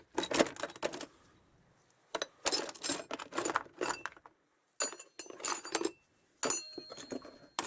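Small loose metal motorcycle spare parts clinking and rattling together as they are picked through and handled, in several short bursts of clatter with brief pauses between them.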